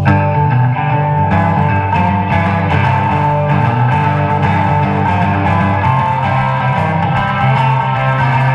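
Live electric blues band playing an up-tempo boogie: electric guitar, bass guitar and drums, with a harmonica played into a microphone.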